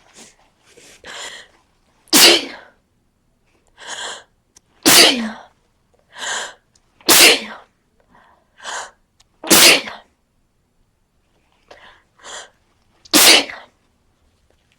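A person with a cold sneezing five times in a row, one loud sneeze every two to three seconds, each preceded by a quieter, drawn-in 'ah' breath as the sneeze builds.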